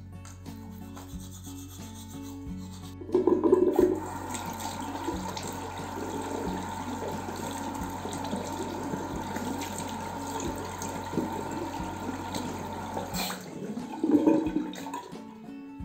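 Bathroom sink tap running with rubbing and splashing, as in rinsing and face washing. It starts suddenly about three seconds in and cuts off shortly before a final splash near the end.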